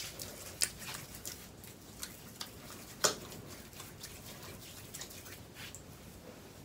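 Hands rubbing hair butter between the palms: scattered soft, sticky clicks and smacks, the loudest about three seconds in.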